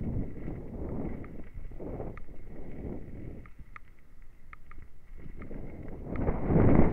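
Downhill mountain bike rolling fast over a loose gravel trail: tyre rumble and bike rattle with wind on the helmet-mounted microphone. It eases off around the middle, with a few light clicks, then gets loud again near the end.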